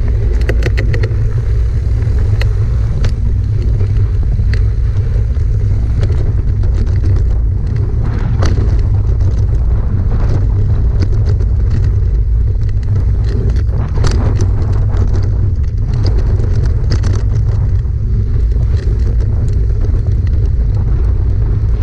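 Wind buffeting the microphone and tyres rolling over dry dirt on a fast mountain bike descent, a steady heavy rumble. Over it, the bike's chain and frame rattle and clack sharply over bumps.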